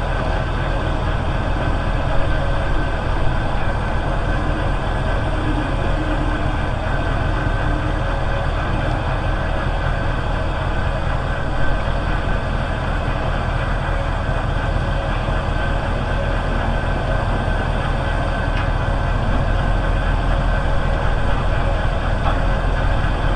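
Engine of a well-service pump hoist running steadily while it lifts drop pipe out of a well, with a few light knocks.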